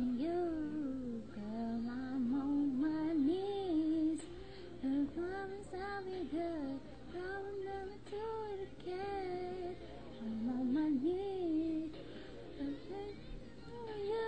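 A young woman singing solo, holding long notes with sliding runs between them.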